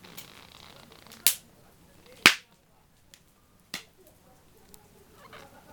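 Wood fire crackling, with three sharp pops about a second apart, the loudest a little past two seconds in, and a few fainter ticks between them.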